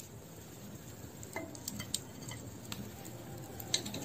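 Light, scattered clinks and scrapes of a small metal strainer against a clay cooking pot as boiled mushrooms are scooped out of the water.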